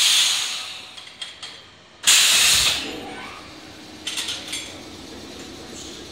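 Two loud bursts of compressed air hissing out at the coupler between two Meitetsu electric cars, one at the start and one about two seconds in, each fading off over a second or so, with a few light clicks and clanks from the coupling gear in between and after.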